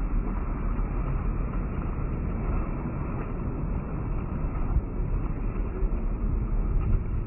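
Wind buffeting the microphone: a steady low rumbling rush.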